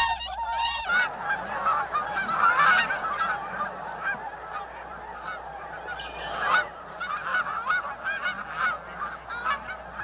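Whistling (tundra) swans calling, a run of bending, whooping calls. About a second in, the sound gives way to a dense chorus of many overlapping calls from a flock of waterfowl on a pond.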